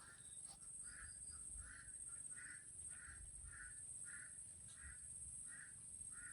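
A bird calling over and over, faint, a short call roughly every half second.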